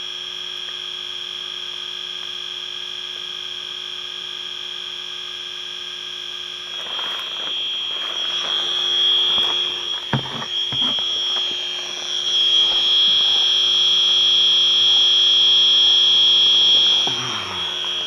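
Electronic refrigerant leak detector sounding a steady, high-pitched alarm tone after triggering, the sign that its sensor is picking up refrigerant. The tone gets louder about two-thirds of the way through and eases near the end, with handling rustle in between.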